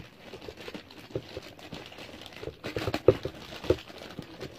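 Packaging crinkling and rustling as it is opened by hand, in irregular bursts, loudest about three seconds in.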